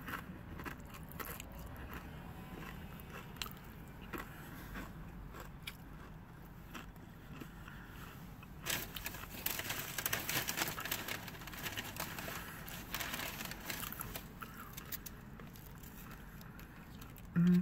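A person chewing food close to the microphone, with small wet mouth clicks. About nine seconds in comes a louder stretch of crunching and crackling that lasts a few seconds.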